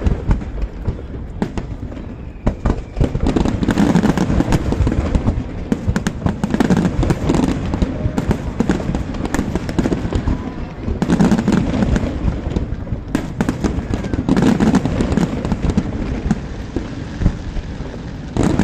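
Aerial firework shells bursting in quick succession: dense crackling and popping, rising in louder waves every few seconds, with a brief lull near the end.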